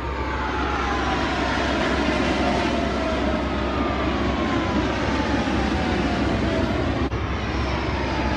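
An airplane flying past, its engine noise loud and steady. A whine in it falls slowly in pitch as the plane goes by, and a second falling whine starts near the end.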